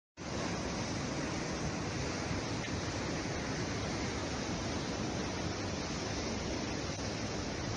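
Torrent of muddy floodwater rushing through a channel in spate: a steady, unbroken rush of churning water.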